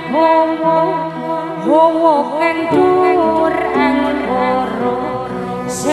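A woman singing a Javanese kidung into a stage microphone, her voice bending and gliding in ornamented phrases over held accompaniment notes.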